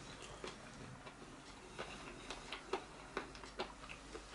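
Faint, irregular clicks of a metal fork tapping and scraping on a plate as food is gathered onto it, coming more often in the second half.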